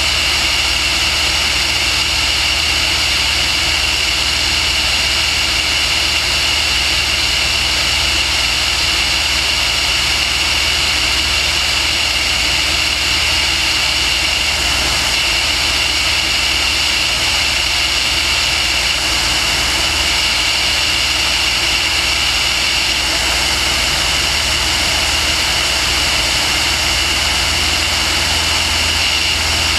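Steady running of the aircraft carrying the camera, heard from on board: a constant high whine over a low hum, with no change in pitch or level.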